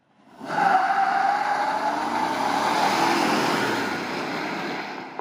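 A GMC Sierra's 6.2-litre V8 on the stock factory air intake under hard acceleration from a standstill, engine and intake noise. It builds to full loudness within about half a second, holds, then eases off over the last second or so.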